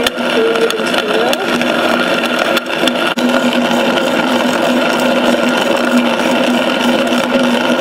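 Ankarsrum Assistent mixer's motor driving its grain mill attachment at medium speed, running steadily as the last of the wheat feeds through the hopper.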